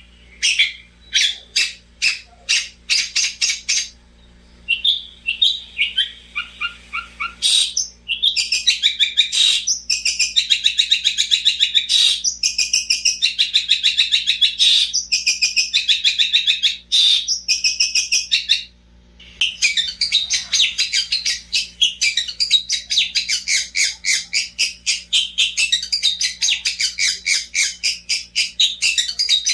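Long-tailed shrike singing continuously in fast, high chattering runs, with two brief pauses, about four seconds in and again near nineteen seconds.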